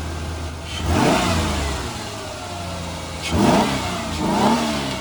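Ford Explorer Sport's V6 engine idling and being revved three times in quick blips, about a second in and twice near the end. It is being tested for throttle response after a used mass airflow sensor, camshaft position sensor and throttle position sensor were fitted, and it seems a bit smoother.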